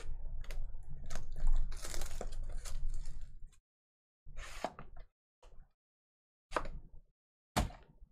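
Crinkling and tearing of packaging as a sealed trading-card hobby box is opened, with many small crackles for about three and a half seconds. This is followed by four short rustles as the box and a foil card pack are handled.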